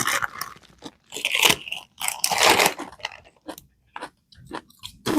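Crunchy chips bitten and chewed close to the microphone, with two loud bouts of crunching in the first three seconds and then fainter crunches.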